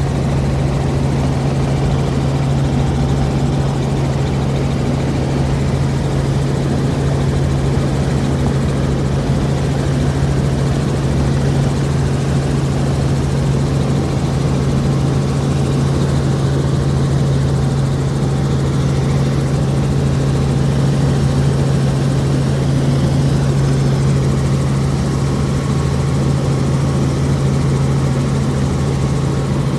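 Helicopter in flight: engine and rotor running steadily, a constant low hum with no change in pitch.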